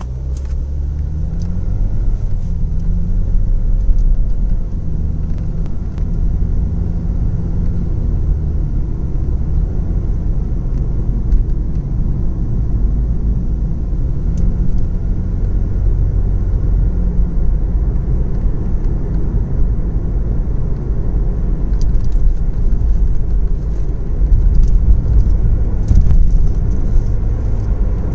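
A Lexus IS250's 2.5-litre V6 and road noise heard from inside the cabin while accelerating lightly in Drive, the engine note rising in the first few seconds, with the light, diesel-like ticking and tapping the car makes only under light throttle in Drive. The owner wonders whether the transmission is to blame.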